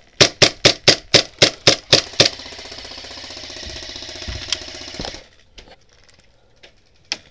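Airsoft electric gun firing: about nine rapid single shots, then a full-auto burst of buzzing rattle for about three seconds that cuts off suddenly.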